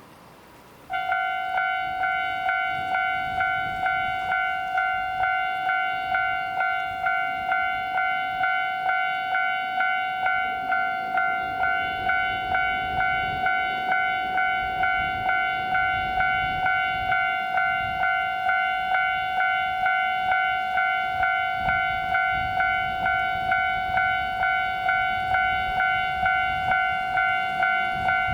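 Japanese railway level-crossing alarm starting up about a second in and ringing its electronic bell tone over and over in a steady rhythm, just under two strikes a second.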